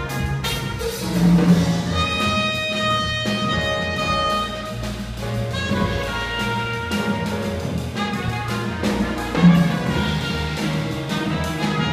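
Live jazz ensemble playing, with a trumpet holding long notes over piano, electric bass and drums.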